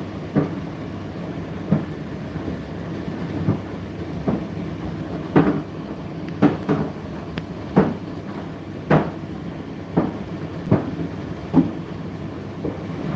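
Indesit IDC8T3 condenser tumble dryer running mid-cycle: a steady motor and fan hum with irregular knocks and thuds as the load tumbles in the drum.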